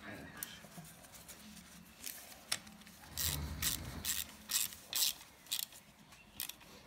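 Hand tool and metal parts being worked on an ATV engine as the cam chain tensioner is bolted on: scattered sharp clicks and scraping, with a longer rubbing noise about three seconds in.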